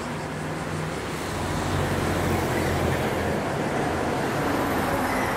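Low vehicle rumble with a steady hum, growing louder over the first couple of seconds and then holding.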